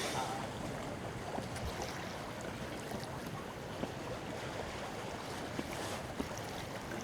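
Steady wind noise with the wash of water, and a few faint clicks.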